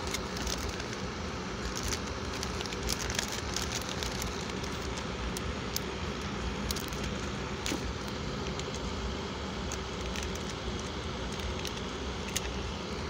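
Close handling noise: a steady crackle with many scattered sharp clicks as hands work with a clear plastic bag and a plastic toy car right by the microphone.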